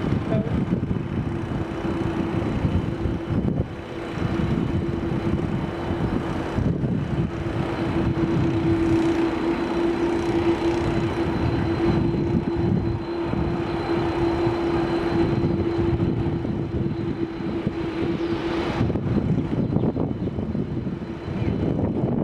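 Jet airliner engines running on the ground: a steady hum over a low rumble, with the hum dropping away about nineteen seconds in.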